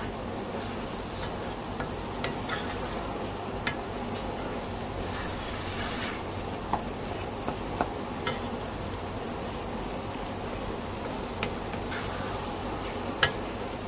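Beef keema and urad dal sizzling in oil in a frying pan while a wooden spatula stirs and scrapes through it, with a scattering of sharp clicks of the spatula against the pan; the loudest click comes near the end. The sound of the bhuna stage, the mixture being fried in added oil until the oil separates.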